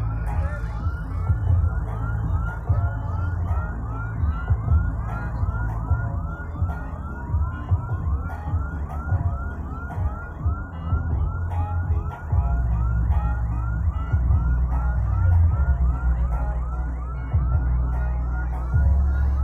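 A carnival sound-system rig blasting heavy bass, with a siren-like yelp over it that repeats evenly, about two and a half times a second.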